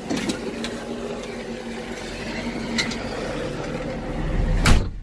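Controls of a Volvo wheeled excavator handled with the engine off: rubbing and light clicks from the joystick and safety lever over a steady hum, with one heavy thump near the end.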